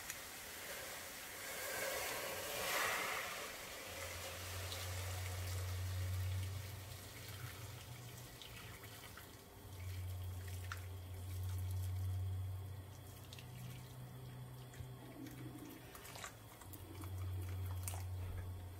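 Hot water poured from an electric kettle into a stainless steel pot of raw pork ribs, splashing into the pot, fullest in the first few seconds and then a thinner stream. A low hum comes and goes underneath.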